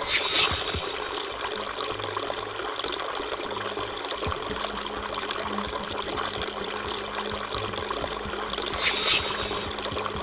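Water trickling steadily from the two spigots of a barrel fountain, thin streams splashing into the basin below. A brief louder hiss rises over it twice, at the very start and again about nine seconds in.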